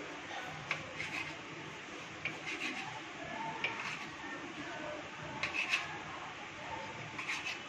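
Kitchen knife cutting through a log of soft dough and tapping and scraping on a stone countertop: a series of short, irregular taps and scrapes, one with each cut.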